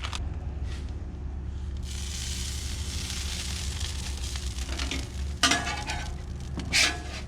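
Omelette eggs sizzling on a Blackstone flat-top griddle, the hiss swelling about two seconds in, over a steady low hum. Twice near the end, a metal spatula scrapes across the steel cooktop.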